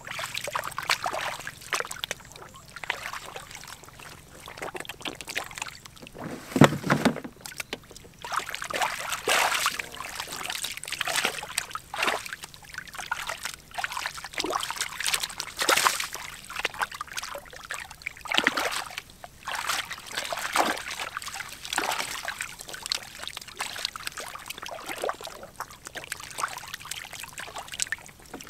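Hands sloshing and splashing in shallow muddy water while feeling for fish, in irregular bursts, with a louder splash about seven seconds in.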